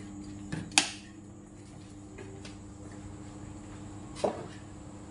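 Electric fan running with a steady hum. A sharp click comes just under a second in, and a knock a little after four seconds in as a plastic chair takes a person's weight.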